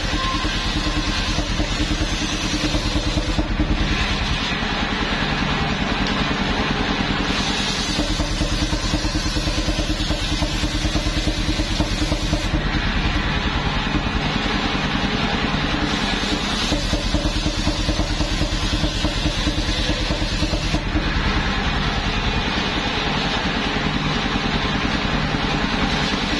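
Homemade portable circular sawmill running steadily, its large blade driven by an engine. A log is fed through it in repeated passes: a high-pitched cutting noise rises over the engine for several seconds at a time, three or four times, with shorter spells between where only the engine and spinning blade are heard.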